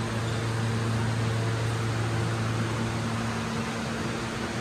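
A subway train standing at an underground platform with its doors open, its air-conditioning and electrical equipment giving a steady low hum over a constant rush of air.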